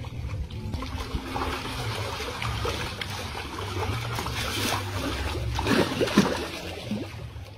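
Muddy river water splashing and sloshing around men wading chest-deep and working a hand net with a large fish in it, with a few louder splashes about six seconds in.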